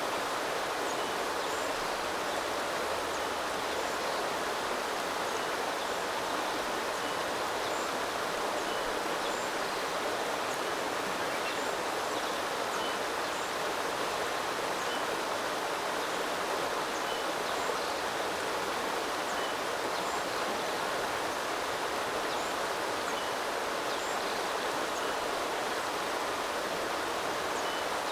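Water of a small river flowing steadily: a continuous, even rush of running water.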